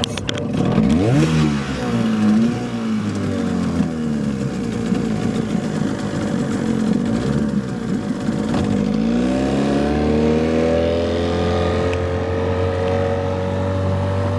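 1970s Vikhr-20 two-cylinder two-stroke outboard motor starting up and revving up and down briefly. About nine seconds in, the throttle is opened and it climbs to a steady high speed as the boat gets under way.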